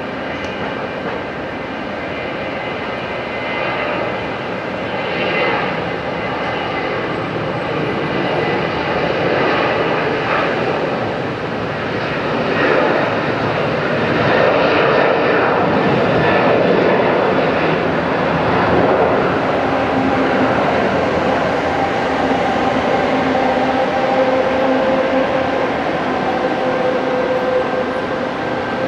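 Boeing 737-800's CFM56-7B turbofan engines at takeoff thrust through the takeoff roll and lift-off: a steady jet roar with a high fan whine, growing louder over the first half as the aircraft goes past, then holding loud.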